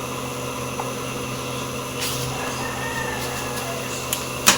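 Steady low mechanical hum, with a single sharp click near the end as a part is handled.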